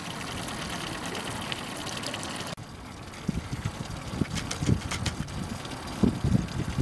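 Steady rush of water churning at the stern where a Yamaha 9.9 kicker outboard is pushing the boat along. About two and a half seconds in it cuts off suddenly, and gusty wind buffets the microphone in uneven low thumps.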